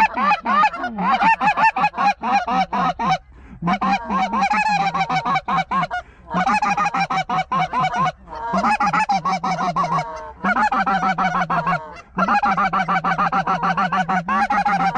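Loud, rapid goose honking in runs of about two to three seconds, broken by short pauses.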